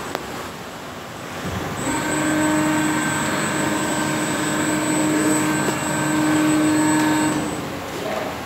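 Plastic injection moulding machine running through a cycle: a sharp click at the start, then a steady machine whine at several fixed pitches that comes in about two seconds in, holds for about five seconds and drops away near the end.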